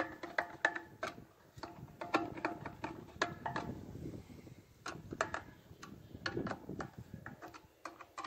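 Hand tool clicking as the dish feed's mounting clamps are tightened, a few sharp clicks a second, with low rustling handling noise in the middle.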